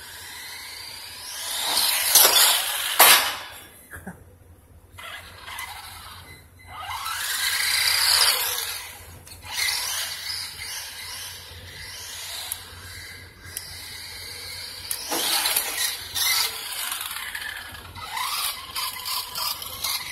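Electric WLtoys RC truck driving on a concrete floor: a motor whine that rises and falls in pitch as it speeds up and slows, swelling loudest a couple of seconds in, around eight seconds and around fifteen seconds. Tyres squeal and scrub on the concrete as it brakes.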